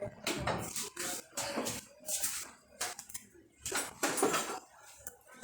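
Cooking pot and utensils being handled, with irregular short scrapes and knocks.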